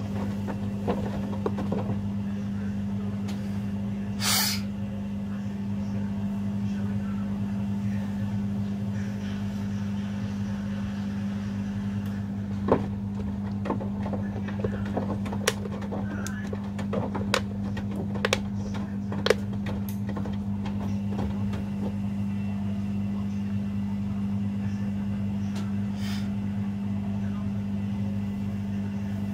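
Washing machines running a rapid wash cycle: a steady low hum, with scattered sharp clicks and knocks about halfway through.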